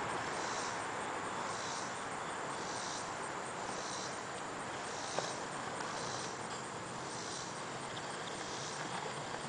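Insects buzzing in high pulses that swell and fade about once a second, over a steady outdoor hiss, with one sharp click about halfway through.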